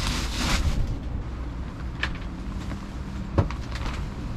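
Wind buffeting the microphone while a tarp is pulled down, rustling and flapping, with two sharp snaps, the louder one about three and a half seconds in.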